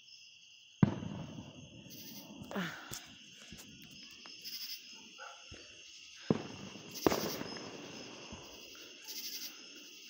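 Fireworks going off: four bangs, the first about a second in and the loudest, each followed by a rolling echo. Insects chirp steadily behind them.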